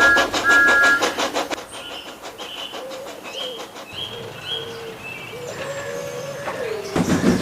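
Steam locomotive sound effects: a two-note whistle blows two short blasts over rapid chuffing. The chuffing then fades under a run of short high chirps, and a louder rumbling burst comes near the end.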